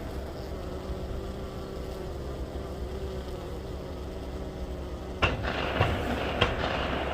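Honeybees buzzing steadily, with three gunshots from a shooting range cracking about half a second apart near the end.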